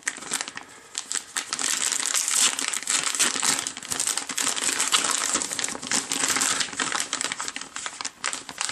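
Plastic anti-static shielding bag crinkling and crackling as hands open it and work a circuit card out of it: a dense run of crinkles and sharp clicks, a little quieter in the first second.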